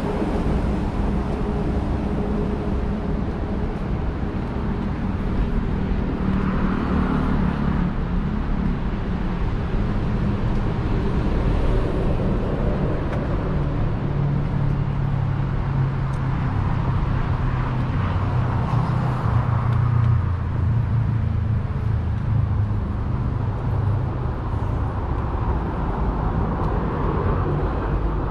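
Road traffic noise: vehicles running, with a low engine hum that swells through the middle of the stretch.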